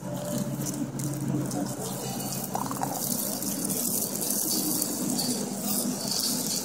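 Inline skate wheels rolling and scraping on rough concrete as the skater weaves backwards through a cone slalom, a steady rushing noise with no breaks.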